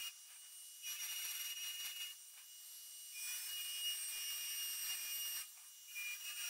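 Dremel rotary tool with a small bit grinding a groove along a crack in a bronze cymbal, to take the soft solder. A high-pitched whine with a grinding hiss that dips briefly about three times as the bit is lifted and moved along the crack.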